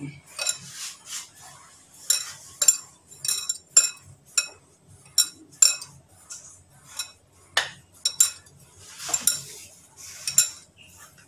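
Bangles on the mixing wrist clinking against each other and the ceramic bowl in irregular short, ringing clinks, while a hand rubs flour, semolina and oil together for dough, with soft gritty rustles between.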